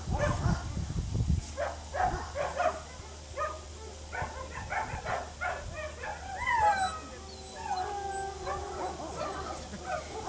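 Australian cattle dog yipping and barking in quick short calls for the first few seconds, then whining in drawn-out calls that slide down in pitch.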